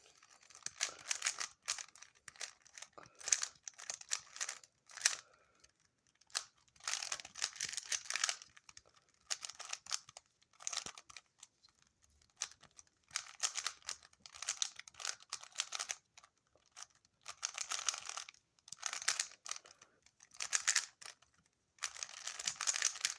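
A 3x3 Rubik's cube being turned fast during a timed solve: rapid plastic clicking and clacking of the layers in bursts of a second or two, with short pauses between them.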